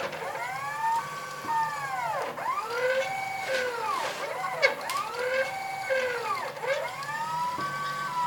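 Stepper motors of a CNC router whining as its axes move. The pitch glides up and back down with each acceleration and deceleration of a move, over and over, with a few short stretches held at one pitch.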